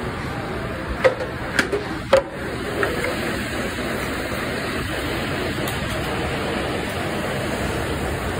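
Steady rushing noise of a commercial kitchen's exhaust hood and grill line, with three sharp knocks between about one and two seconds in.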